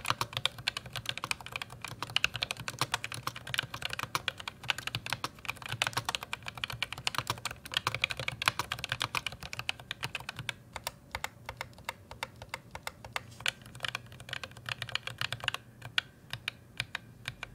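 Typing on an ASUS ROG Claymore II keyboard fitted with ROG RX Red linear optical switches: a fast, steady run of key clacks that thins out near the end.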